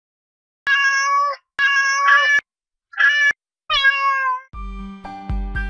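A domestic cat meowing four times, each call under a second, the last one falling in pitch. Music with a beat starts near the end.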